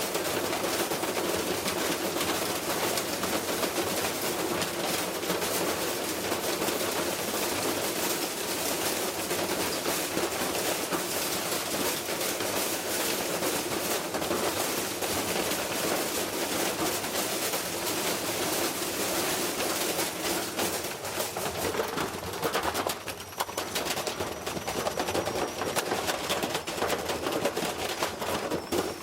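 Washing machine rattling and banging hard and fast, a dense continuous clatter of knocks as it is run to destruction. The clatter briefly thins about two-thirds of the way through, and a faint high whine joins it near the end.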